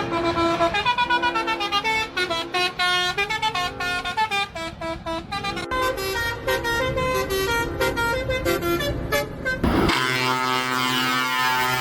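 Musical truck horn playing a quick tune of short notes at shifting pitches. About ten seconds in there is a sudden rising whoosh, then one long held horn blast.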